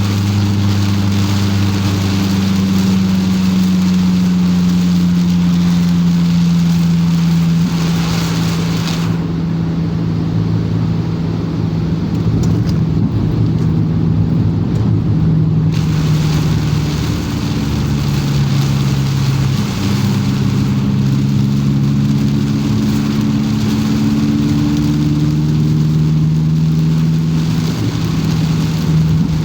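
Car engine hum with road and rain hiss, heard from inside the car while driving in the rain. The engine note slowly rises and falls in pitch with speed, and the hiss eases for several seconds partway through.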